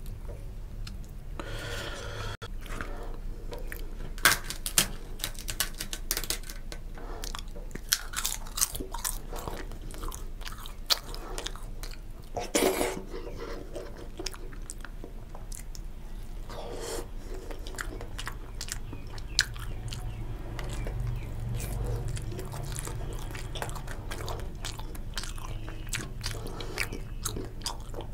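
Close-miked chewing and biting of a person eating fried hilsa fish and khichuri by hand, with many sharp mouth clicks and occasional crunches.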